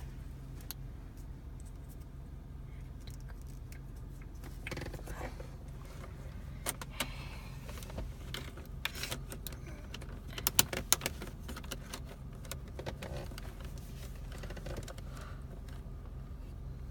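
Plastic clicks and small rattles as a VentTabs clip is worked and pushed onto a car's air-vent louver, in scattered clusters with the loudest snaps a little past halfway, over a steady low hum.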